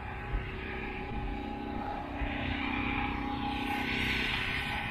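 A distant engine drones steadily, swelling in the middle and easing again toward the end, with one light knock near the start.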